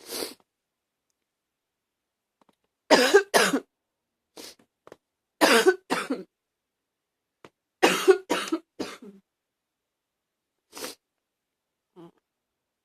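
A person's short, barky coughs, coming in bursts of two to four with silence between, and a few fainter single coughs.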